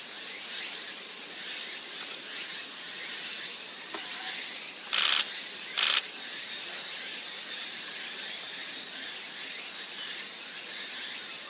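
Two short splashes about five and six seconds in, a female Narcissus flycatcher bathing and flicking water, over a steady hiss.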